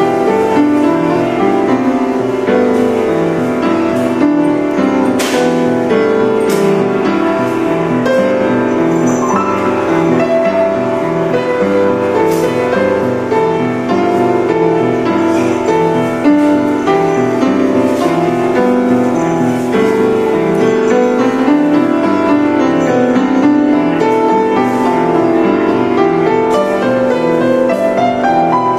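Upright piano being played, a continuous flowing stream of notes and chords without a break.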